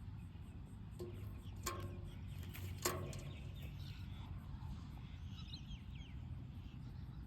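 Birds calling outdoors: three short, sharp calls in the first few seconds, then fainter high chirps, over a steady low rumble.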